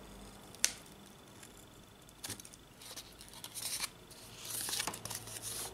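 Scissors snipping the corners off a corrugated cardboard disc: a sharp snip about half a second in, a smaller one a little after two seconds, then two longer cuts through the cardboard in the second half.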